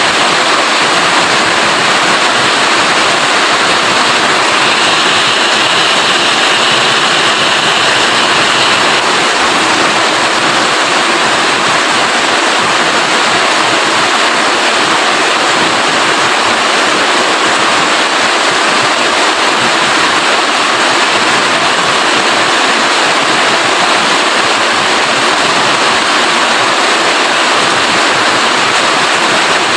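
Steady heavy rainfall, an even, dense hiss, with a slightly brighter patch of hiss for a few seconds about five seconds in.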